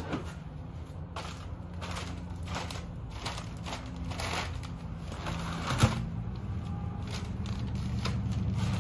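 Thin plastic sheeting crinkling and crackling in irregular bursts as it is stepped on and a wheel and tyre are carried over it, with one sharp knock about six seconds in.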